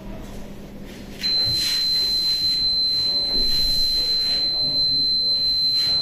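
Fire alarm panel buzzer sounding one steady high-pitched tone that starts about a second in: the panel has gone into fire alarm after an alarm was triggered on the ground floor.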